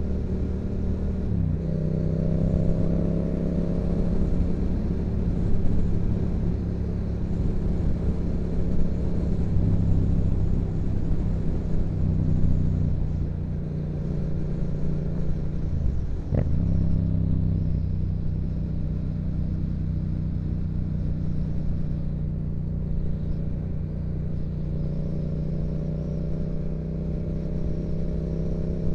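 2016 Yamaha MT-07's 689 cc parallel-twin engine, fitted with a Yoshimura exhaust, running steadily while riding. The engine note breaks briefly about a second in and again around sixteen seconds in.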